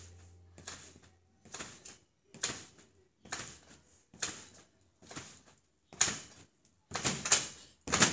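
A trampoline's mat and springs sounding with each landing of a child jumping, about one bounce a second. The last few landings are louder.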